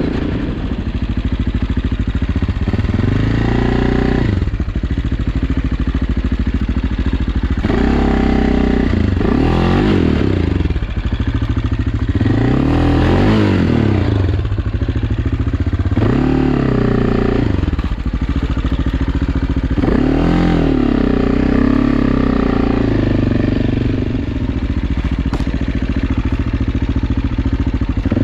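AJP PR7's single-cylinder four-stroke engine running under a changing throttle, its pitch rising and falling again and again every few seconds as the motorcycle is ridden.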